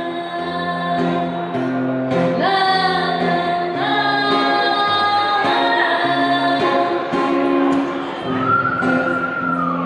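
Music: a song with a sung melody over held instrumental notes and a steady bass line, fading up at the start.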